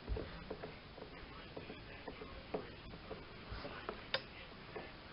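Faint, irregular ticks and crackles of a hot soldering iron tip working melted plastic into a crack in a plastic fender, with a dull thump at the start and a sharper click about four seconds in.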